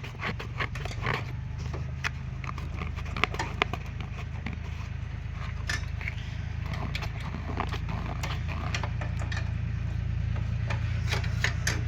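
Metal parts and hand tools clinking and scraping as they are handled during motorcycle clutch work, a run of irregular sharp clicks over a steady low hum.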